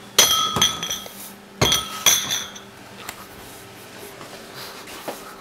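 Ceramic pudding basins clinking as they are unstacked and set down on a stainless-steel worktop: two pairs of sharp clinks with a brief ring in the first two seconds or so, then a few light taps.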